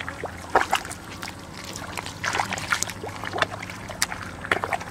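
Feet squelching and splashing through wet mud and shallow water, a series of uneven steps.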